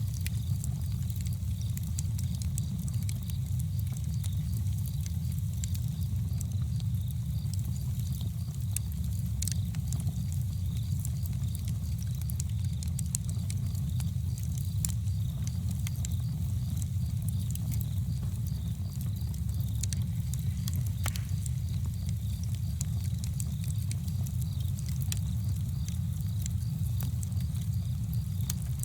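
Campfire crackling, with scattered small pops and snaps over a steady low rumble.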